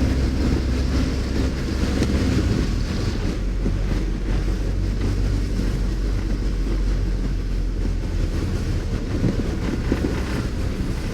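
Car driving slowly over a wet, bumpy dirt road, heard from inside the cabin: a steady low engine rumble under a rushing noise of tyres on the waterlogged road.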